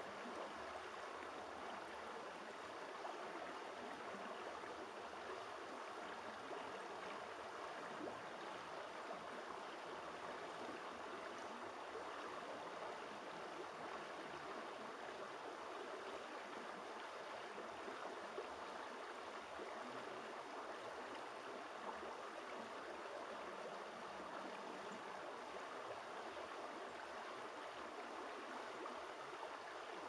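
Shallow creek running over stones: a steady, unbroken water sound.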